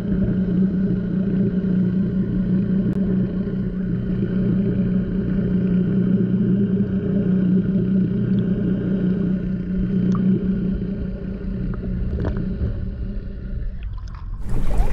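Muffled sound heard through water by a submerged camera: a steady low hum with a few faint ticks, changing to brighter, open-air water noise right at the end as the camera comes out of the water.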